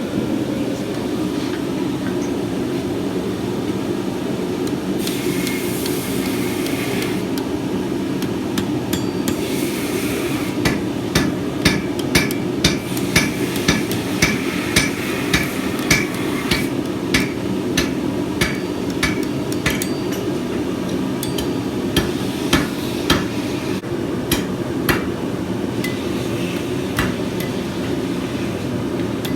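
Hand hammer striking hot steel on an anvil to bend the end of a fencing-nail deadbolt up 90 degrees into a handle. The ringing blows come about two a second for roughly ten seconds, then a few scattered ones, over a steady low roar.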